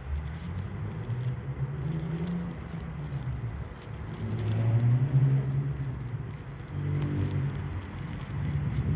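Low rumble of passing road traffic, swelling about four to five seconds in and again around seven seconds.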